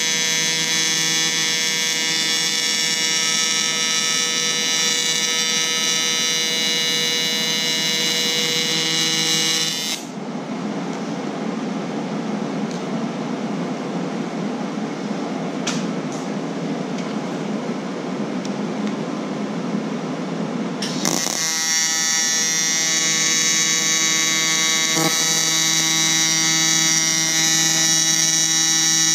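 TIG welding arc buzzing steadily on aluminum diamond plate: the rough electric buzz of AC TIG on aluminum. About ten seconds in, the arc stops and leaves a lower steady hiss. It strikes again about ten seconds later and buzzes to the end.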